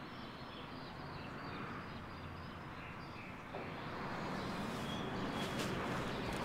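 Outdoor town ambience: a steady hiss of distant traffic with faint bird chirps, growing a little louder about halfway through. Near the end come a couple of sharp taps, high-heel steps on a tiled floor.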